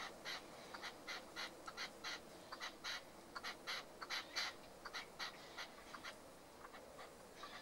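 Red-legged partridge calling: a rapid run of short, clipped notes, about three to four a second, loudest toward the middle.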